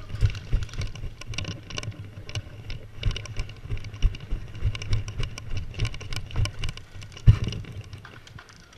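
Irregular thumps and rattling of footsteps and gear handling, the kind a gun-mounted action camera picks up as an airsoft player moves, with one sharper, louder knock about seven seconds in.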